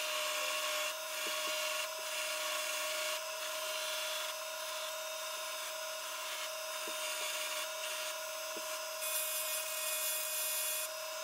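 A small power tool's motor runs steadily at a constant high pitch, with a rasping, rubbing noise from the abrasive or brush working the metal.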